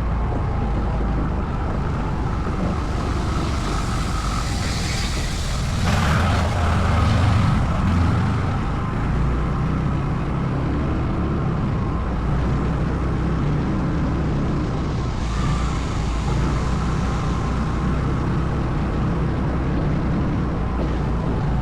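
ATV engine running steadily during a ride, with a louder rush of noise about four to eight seconds in and again briefly around fifteen seconds in.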